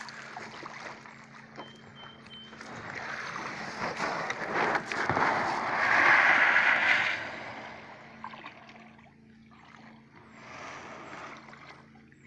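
Shallow river water sloshing and splashing around a kayak and a person wading beside it at the water's edge. It builds to a louder splash about six seconds in, then fades.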